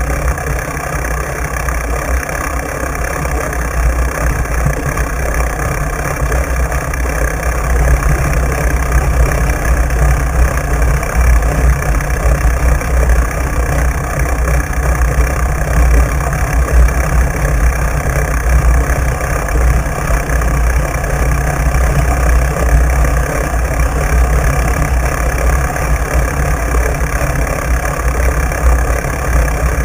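Uneven low rumble of wind buffeting a handlebar-mounted camera's microphone, mixed with the fat-bike tyre rolling over wet sand and shells.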